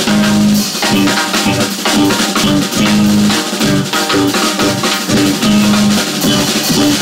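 Live improvised jazz from a small band of saxophone, electric guitar, electric bass and drum kit, with the drums prominent and a held note repeating every few seconds.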